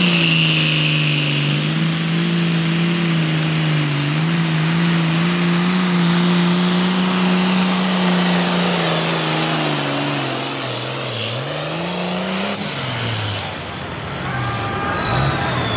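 Turbocharged diesel engine of a Super Pro Farm pulling tractor held at high revs under full load as it drags the sled, with a high turbo whine over it. About ten seconds in the engine note sags, rises once more, then drops away, leaving the turbo whine falling slowly in pitch.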